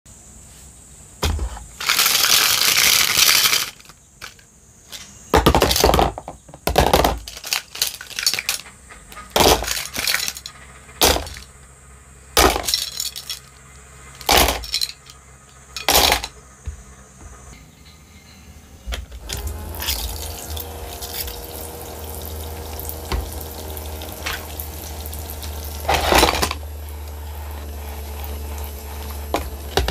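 Small plastic toy dishes and cups clattering, clicking and knocking as they are handled in a plastic toy kitchen sink, with a loud rattling rush about two seconds in. About two-thirds of the way through, the toy sink's small pump motor starts a steady hum under a hiss of running water while a sponge works in the sink.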